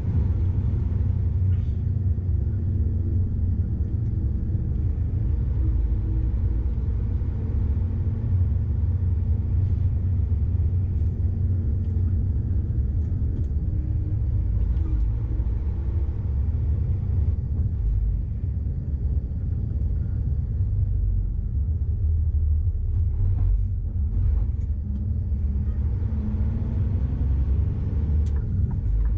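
Scania R440 truck's straight-six diesel engine running at low speed under way, heard inside the cab as a steady low rumble mixed with road noise.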